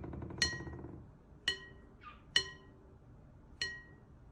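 A small glass object tapped four times, each tap a short ringing clink.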